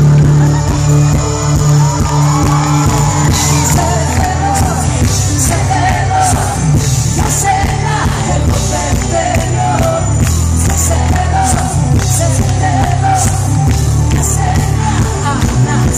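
Live pop-rock music: a woman sings lead into a microphone over a full band of drums, electric guitar and keyboards, recorded loud from among the audience.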